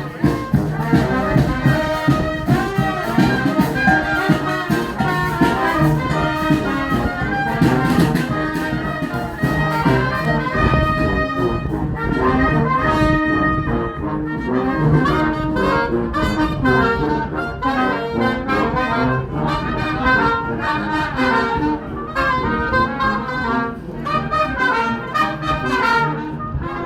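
A street brass band playing live.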